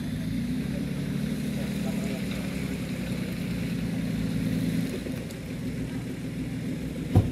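An off-road vehicle's engine running steadily out of sight, easing off about five seconds in. A single sharp knock near the end.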